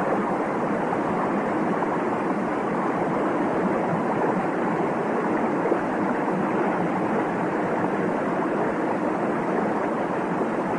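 Steady, even rush of fast-flowing water from a river swollen by a storm.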